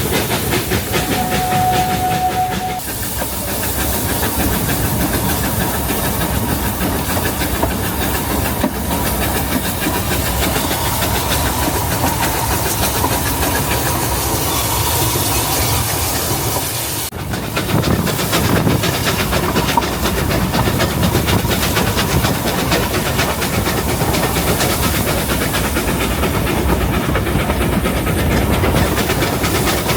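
Narrow-gauge steam locomotive chuffing and hissing as it works the train uphill, with the carriages clattering over the rail joints. A brief steady high tone sounds about a second in, and the sound changes abruptly twice.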